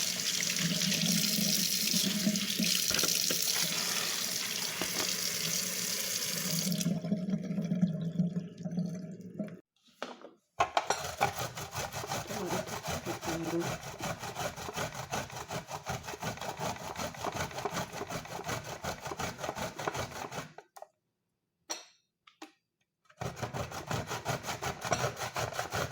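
Tap water running into a sink for several seconds, then a fast, even run of small ticks or scrapes, with two brief dropouts.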